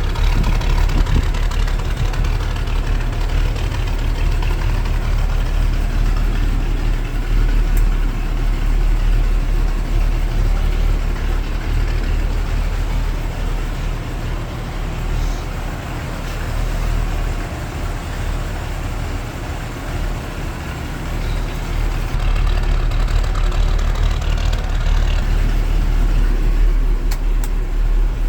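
V8 engine of a Toyota Land Cruiser FJ45LV idling steadily, a little quieter for a few seconds midway.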